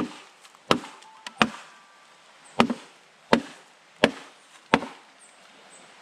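Repeated chopping strikes on bamboo: seven sharp blows about 0.7 s apart, with one longer pause after the third.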